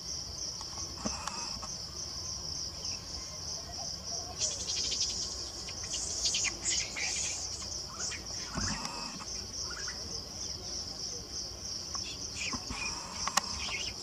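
Steady, rapidly pulsing high-pitched insect chorus of crickets or cicadas, with scattered high chirps and squeaks over it around five to seven seconds in and again near the end, and a single sharp tick just before the end.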